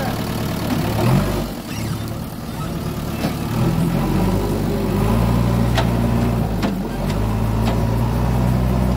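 JCB backhoe loader's diesel engine running steadily. From about three and a half seconds in, its low note settles and shifts in steps, with a few sharp clicks over it.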